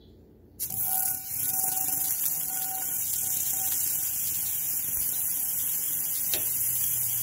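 Sizzling in a hot frying pan while cooking a French omelet. It starts suddenly about half a second in and then runs steadily.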